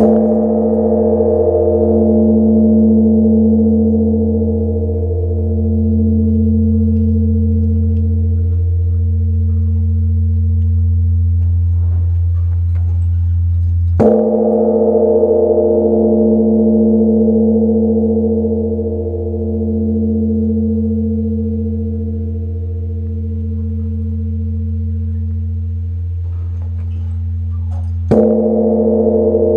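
Large Korean bronze temple bell (beomjong) struck three times, about fourteen seconds apart. Each strike rings on in a long, deep hum with a slow throbbing beat.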